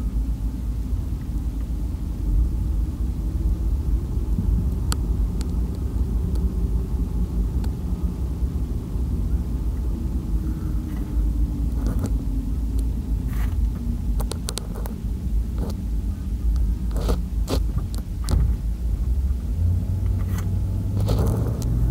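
Engine and road rumble heard from inside a moving vehicle's cab, the engine note sinking slowly in the middle and stepping up again near the end. Scattered clicks and rattles come in the second half.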